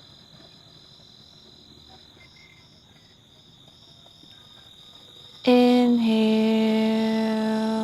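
Insects chirping in the background: a steady high whine with a faint pulsing about three times a second. About five and a half seconds in, a woman's drawn-out voice cuts in loudly and holds one steady pitch.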